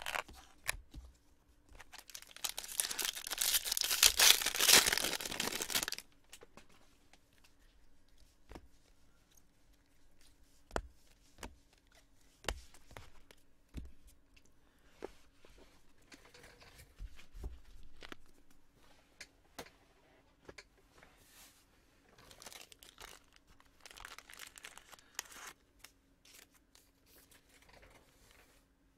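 Trading-card box packaging being torn open: one loud tearing of wrapper or cardboard about two seconds in, lasting about four seconds. It is followed by scattered small clicks of handling and a second, quieter stretch of crinkling near the end.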